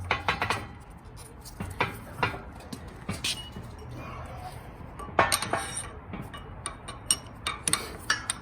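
Metal bushing-press parts clinking and knocking together as they are handled and fitted, in a scatter of separate sharp clinks, some with a short ring.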